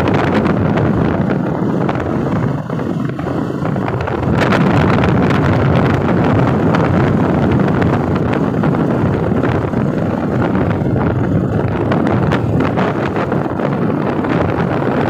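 Wind rushing over the microphone of a moving motorcycle, with the motorcycle's engine and tyres running steadily underneath at road speed.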